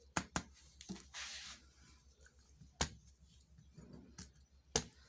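A silicone spatula pressing down and smoothing soft besan barfi mixture in a metal tin: soft scraping with a few sharp clicks and taps.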